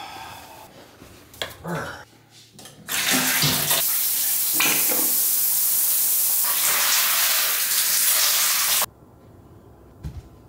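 Water running from a tap while hands are washed: a steady rush for about six seconds that stops abruptly.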